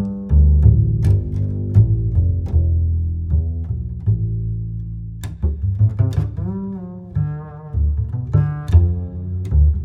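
Background music: deep bowed and plucked low strings, double bass or cello, with sharp plucked notes and a higher wavering melody line over them.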